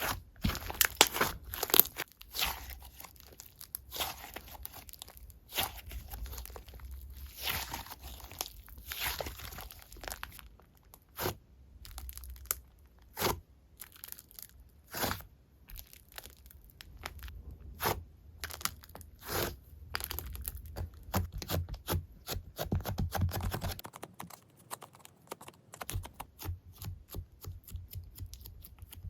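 Hands squishing, stretching and poking a slime: irregular sticky clicks, pops and crackles throughout.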